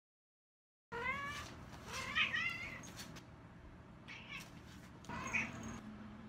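A ginger domestic cat meowing about four times in short calls, the second one the loudest.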